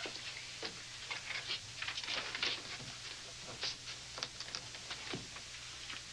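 Faint, irregular clicks and ticks, several a second at uneven spacing, over a low steady hum.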